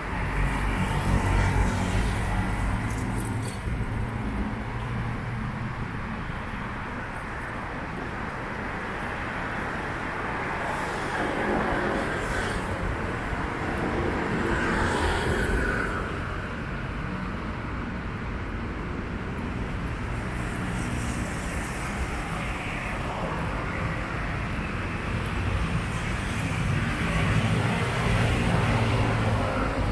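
Light city road traffic: cars and motorcycles passing on a wide avenue with a steady background rumble, swelling as vehicles go by near the start, in the middle and again near the end.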